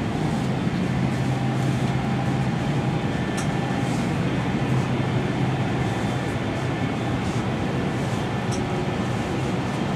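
Steady hum and hiss of an Airbus A319's cabin air conditioning, with a few faint clicks scattered through it.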